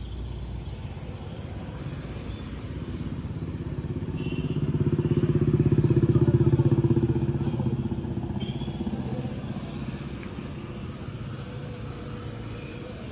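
A passing motor vehicle's engine, growing louder to about six seconds in and then fading away.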